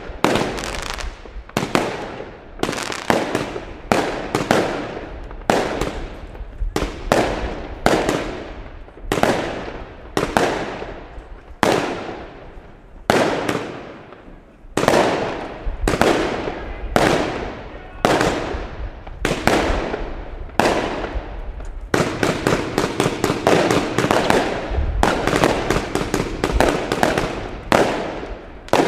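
Aerial fireworks firing shot after shot, each a sharp bang trailing off in an echo, about one a second, with the shots coming quicker and closer together in the last several seconds.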